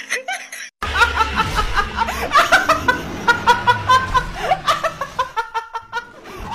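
A young woman laughing hard in quick, repeated bursts.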